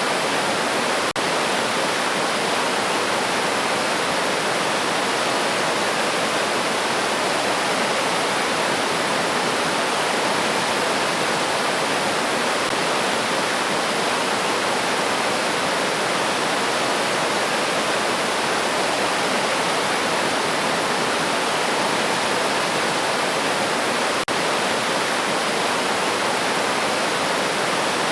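River or mountain stream rushing steadily, a dense even wash of flowing water. The sound drops out for an instant twice, about a second in and near the end.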